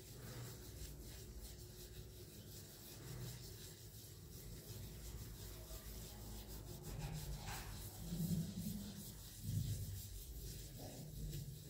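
A cloth rubbing polish over a small brass vase held in gloved hands, a continuous rubbing with two louder swells late on.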